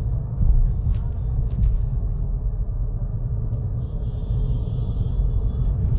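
Steady low rumble of engine and road noise inside a car's cabin as it drives slowly. A faint, thin high tone comes in about four seconds in and lasts nearly two seconds.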